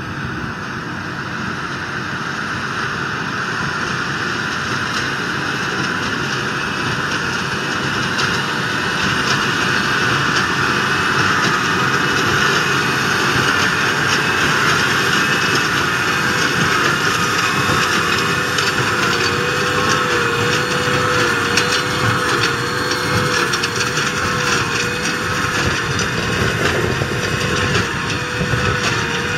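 Case IH Puma 200 CVX's 6.7-litre six-cylinder diesel running with a Claas Quadrant 5200 large square baler working behind it, a steady mechanical clatter that grows louder over the first ten seconds or so.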